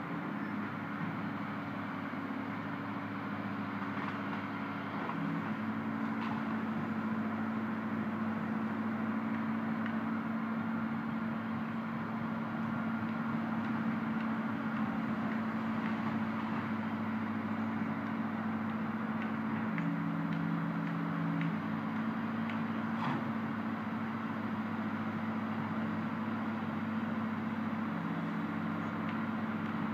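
Diesel engine of a tracked excavator running steadily, its note stepping up and down a few times as it works. A faint knock comes about two-thirds of the way through.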